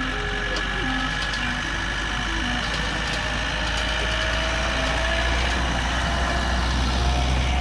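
Miniature park train's engine running as it passes close by, a low rumble that grows as it nears, with a faint whine rising slowly in pitch. A simple tune of short notes plays faintly for the first couple of seconds.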